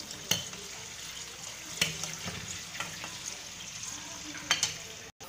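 Oil sizzling steadily as stuffed dough dumplings (karigadubu) deep-fry in a kadai at medium heat, with a few sharp clicks of a metal slotted spoon against the pan as they are turned.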